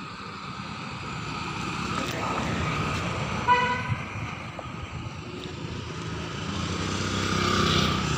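Road traffic running past, swelling as a vehicle goes by near the end, with a short vehicle horn toot about three and a half seconds in.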